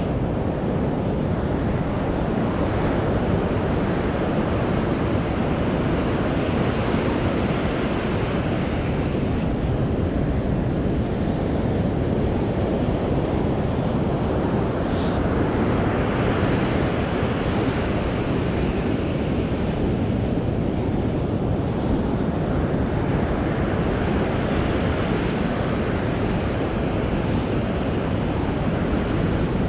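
Surf breaking on a sandy beach, the wash swelling and easing every few seconds over a steady low rumble of wind on the microphone.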